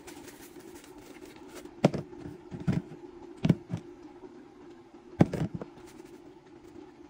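A seasoning container being handled and shaken over a metal pot: several sharp taps and knocks, some in quick pairs, about two, three and a half and five seconds in. A steady low hum runs underneath.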